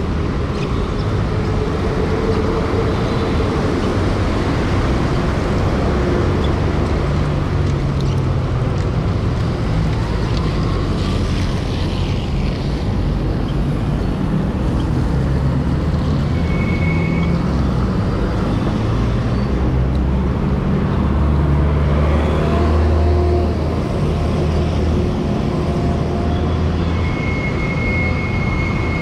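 Street traffic heard from a moving bicycle on a city road: a steady rumble of cars and other vehicles. A brief high tone sounds about halfway through and a longer one near the end.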